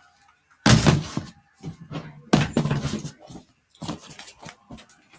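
Handling noise close to the microphone: two loud thumps with rustling as things are moved about, followed near the end by several lighter knocks and clicks.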